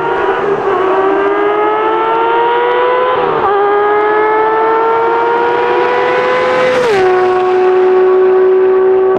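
Porsche 992 GT3's naturally aspirated flat-six accelerating hard through an aftermarket stainless valved exhaust with the valves open and 200-cell headers, a high-pitched wail. The revs climb, dip briefly at a shift about three seconds in, and climb again. At about seven seconds the pitch drops sharply and then holds steady.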